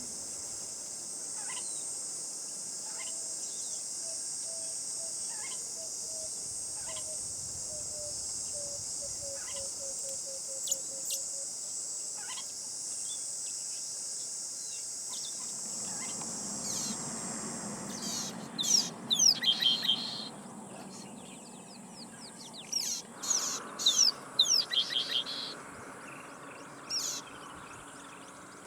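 Wild birds calling over a steady high-pitched insect chorus. In the first half a run of low notes falls slowly in pitch and quickens. In the second half louder, quick sweeping calls come in clusters.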